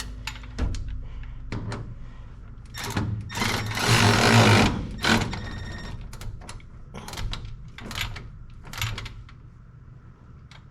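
A small handheld power tool runs in one loud burst of a couple of seconds, about three seconds in, amid scattered clicks and knocks of parts and tools being handled.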